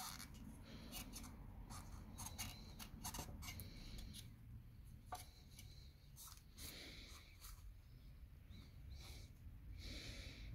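Faint handling noise: gloved fingers rubbing and poking at a worn control arm's torn rubber bushing, with a scatter of small clicks and scrapes against the metal arms and cardboard.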